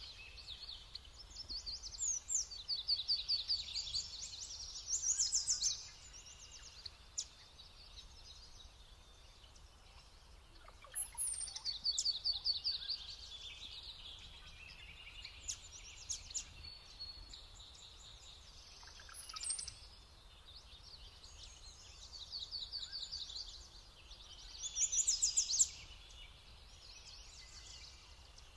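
Songbirds singing: several phrases of rapid, repeated high notes, each a few seconds long and returning every several seconds, with fainter calls between.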